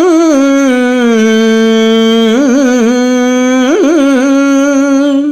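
A man's voice singing a long held vowel in the Telugu padyam style, with no accompaniment heard. The note dips lower about a second in and climbs back, with quick wavering turns in the melody at a few points.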